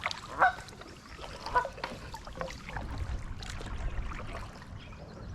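Geese honking a few times in the first two or three seconds, over the splash and drip of canoe paddle strokes.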